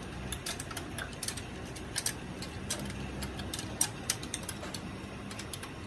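Irregular metallic clicks and clinks of hand tools, a ratchet wrench and spanners, working on the fittings of a six-cylinder diesel engine, over a faint low hum.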